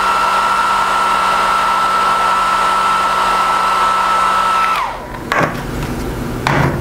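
Handheld electric heat gun running steadily, its fan blowing with a high whine, to shrink heat-shrink tubing over soldered wire joints. About five seconds in it is switched off and the whine falls away, followed by a few handling knocks and clicks.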